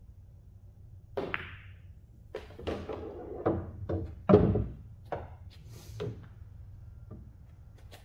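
Pool cue striking the cue ball about a second in, followed by a string of sharp clicks and knocks as pool balls collide, hit the cushions and one drops into a pocket. The loudest is a heavy low thud a little past the middle.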